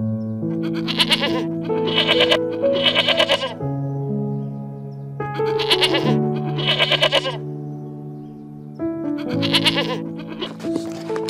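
Soft background music of steady held notes, over which an animal calls about seven times in short, quavering cries of roughly half a second each, some in quick pairs.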